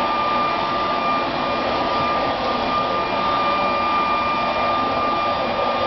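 Electric leaf blower running steadily, a constant high motor whine over a rushing of air.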